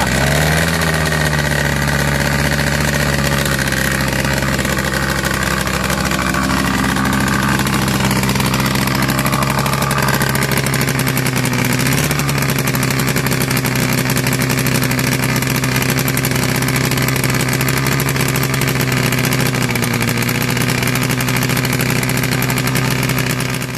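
Homemade motorcycle's small air-cooled engine running steadily at a constant speed, with a brief rise in revs right at the start and a small blip about halfway through.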